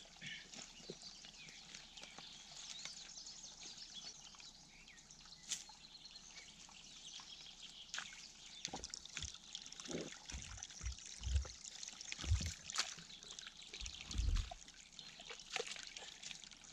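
A shovel and a wooden stick digging into wet mud at a forest spring, with water trickling into the hole. Scattered scrapes and clicks run throughout, and a cluster of dull low thuds falls about ten to fourteen seconds in.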